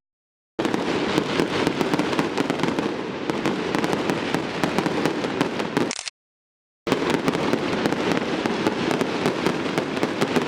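Fireworks display: a dense barrage of bursts and crackling pops over a steady rumble. The sound cuts to dead silence for under a second twice, near the start and about six seconds in.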